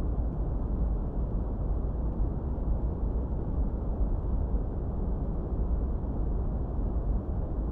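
Steady synthesized masking noise of the deep, low-heavy kind (brown noise rather than hissy white noise): an even, muffled rush with no high hiss and no changes.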